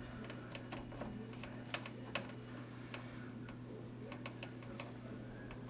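Faint, scattered light clicks and ticks at irregular intervals over a steady low electrical hum.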